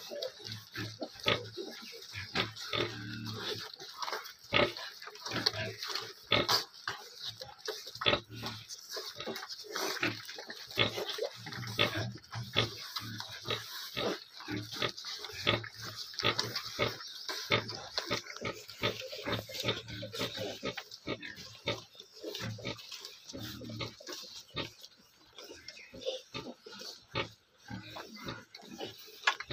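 A litter of 10-day-old piglets suckling at a sow's teats: a continuous run of quick wet smacking and sucking clicks, with short low pig grunts every second or two.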